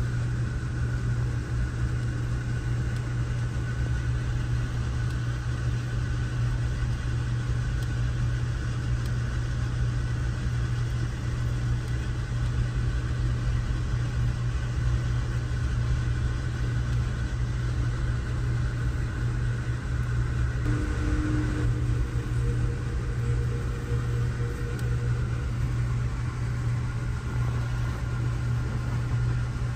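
Car on the move: a steady low drone of engine and road noise, with a faint brief tone about two-thirds of the way through.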